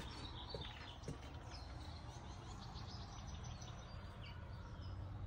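Faint outdoor ambience: small birds chirping on and off over a steady low hum.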